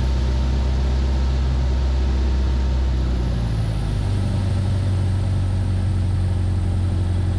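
In-cockpit drone of a Van's RV-7's piston engine and propeller in flight. About halfway through, the engine note changes and the high wind hiss eases as the aircraft slows into a stall.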